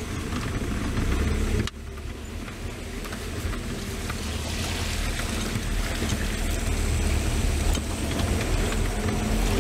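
Vehicle engine and road noise heard from inside the cab while driving: a steady low rumble with a rushing noise over it, dropping suddenly just under two seconds in and building again after.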